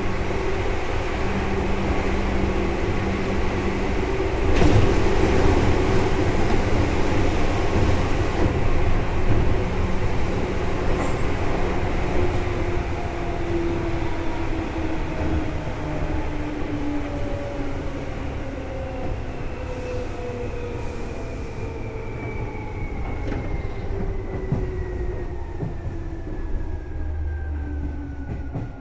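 Seibu 2000 series electric train heard on board, running with a steady rumble of wheels and motors. From about halfway through, the motor and gear whine falls steadily in pitch as the train slows down.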